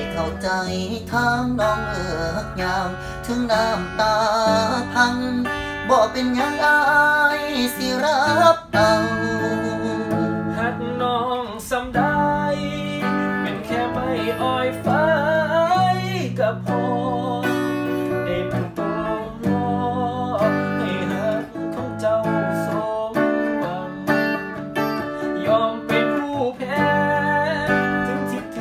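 A man singing a slow Thai song in the Isan dialect, with vibrato on held notes, accompanied by an electric guitar.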